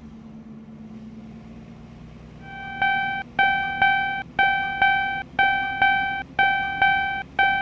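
Japanese railroad crossing alarm bell ringing 'kan kan', one identical ringing tone struck about twice a second and dying away after each strike, starting about three seconds in after a low steady hum.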